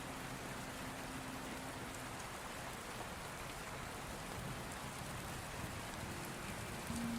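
Steady rain falling, an even hiss. A faint low hum runs through the first two seconds and comes back briefly near the end.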